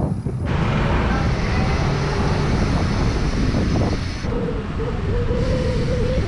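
Wind rushing over the action camera's microphone while riding a bicycle, with tyre and road noise. A steady mid-pitched hum joins for the last two seconds.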